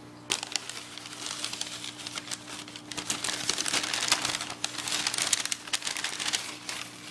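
Crumpled newspaper packing being pulled out of a styrofoam-lined shipping box: a steady run of crinkling and rustling that starts about a third of a second in and is loudest midway.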